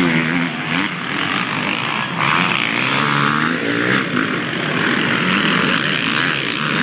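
Motocross motorcycles running on the track, engine pitch rising and falling as the riders rev on and off the throttle.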